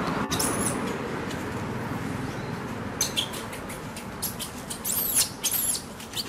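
Short, very high-pitched animal squeaks and chirps, falling in pitch, in a few clusters: one near the start and a busier run around five seconds in, with short clicks between them.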